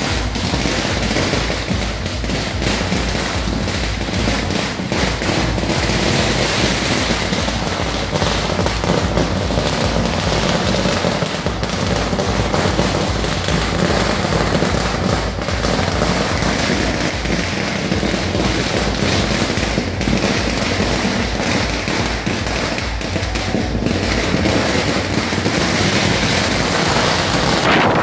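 A long string of firecrackers going off in one continuous rapid crackle of sharp bangs, with deeper thumps mixed in, then stopping suddenly.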